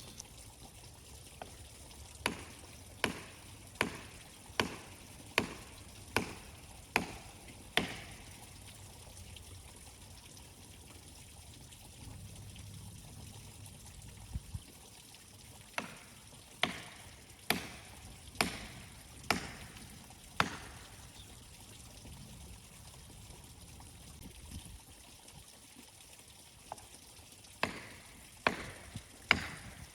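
Hammer blows driving a plastic felling wedge into the cut of a large dead pine, in runs of strikes a little under a second apart with pauses between. The wedge is being driven to tip a tree that leans the wrong way toward its intended direction of fall.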